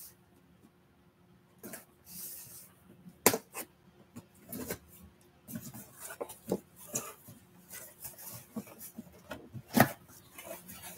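A cardboard box being cut open with a small blade and its flaps pulled back: short scratchy cutting and scraping of cardboard, rustling flaps, and two loud sharp knocks, one about three seconds in and one near the end.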